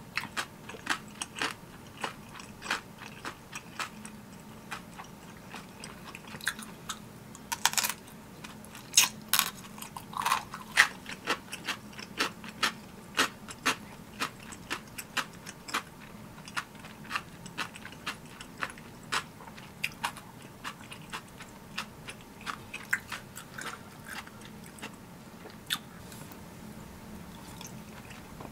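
Close-miked mouth sounds of eating spicy tteokbokki: wet chewing and biting with sharp smacks and clicks, about two or three a second, a few louder ones near the middle.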